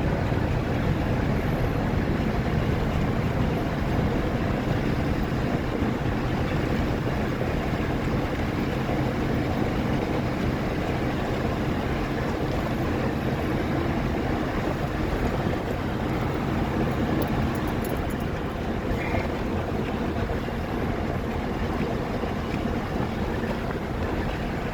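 Steady road noise of a car driving: engine and tyres running at an even speed, with a low hum.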